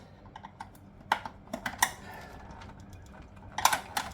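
Fuse-box parts being handled and pulled off: a scatter of sharp clicks and clinks of small metal and plastic pieces, in a cluster about a second in and another near the end.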